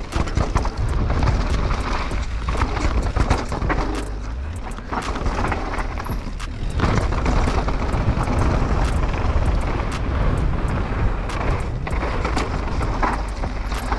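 Mountain bike descending a rough dirt trail at speed: tyres rolling over dirt and rocks, with frequent knocks and rattles from the bike over the rough ground, under a heavy rumble of wind on the microphone.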